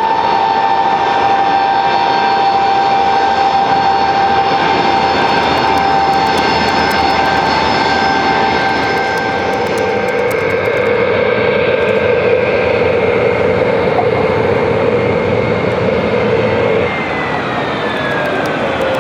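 Rolls-Royce Trent XWB engines of an Airbus A350-900 climbing away after takeoff: a steady jet roar with high whining fan tones, the strongest of which fades about halfway through.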